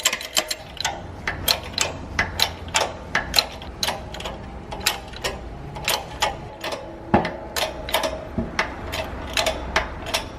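Shop press pressing a new rear wheel bearing into the hub: a run of irregular sharp clicks and ticks, a few a second, over a low steady hum.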